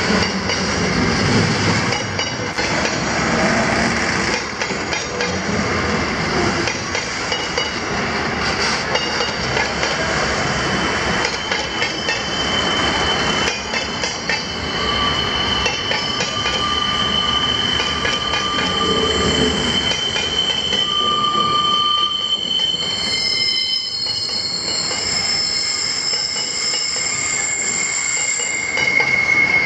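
Loaded grain hopper wagons rolling past with a steady rumble and wheel clatter. From about halfway through, wheels squeal against the rails in several thin, steady high-pitched tones that come and go.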